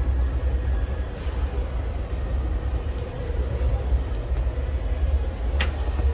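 Steady low background rumble with a sharp click about five and a half seconds in.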